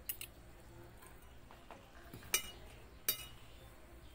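Spoon and fork clinking against a dinner plate in a few sharp, separate clinks, with quiet between them.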